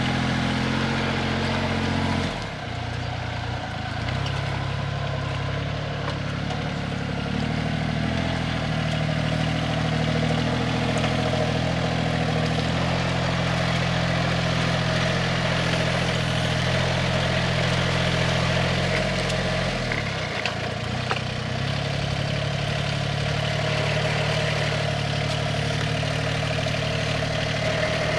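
Engine of an old Yanmar 10-row riding rice transplanter running steadily as it plants in a flooded paddy. The engine note dips and climbs back a couple of times, about two seconds in and again around twenty seconds.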